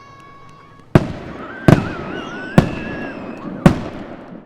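Aerial firework shells bursting: four loud booms, spaced about a second apart, each trailing off in a rolling rumble, with a wavering whistle-like tone between the bursts.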